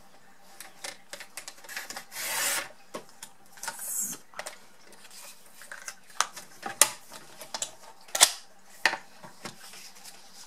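Paper trimmer cutting cardstock: a long rasping stroke of the blade along the rail about two seconds in and a shorter one near four seconds, followed by several sharp clicks and taps as the cardstock and trimmer are handled.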